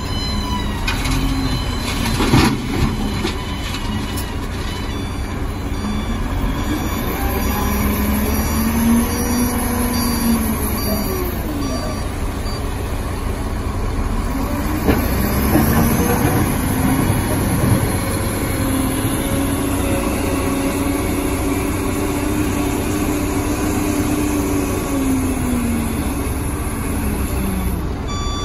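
SDLG wheel loader's diesel engine running under load, revving up and down again and again as it works. A loud bang about two seconds in comes as broken asphalt drops from the bucket into the dump truck's steel bed. A reversing alarm beeps for a few seconds soon after.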